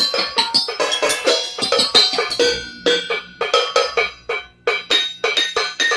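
Kitchen utensils, pots, pans and bowls, struck as tuned percussion in a fast rhythmic pattern of ringing metallic notes. A low held tone joins about three seconds in.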